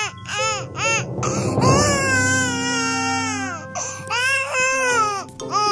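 Baby crying: a few short wailing cries, then one long drawn-out wail about two seconds in, then more short cries near the end.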